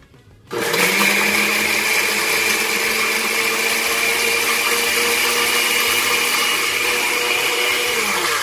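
Oster glass-jar blender switched on about half a second in, spinning up and running steadily as it purées tomatillos with a little water, then switched off near the end, its motor winding down.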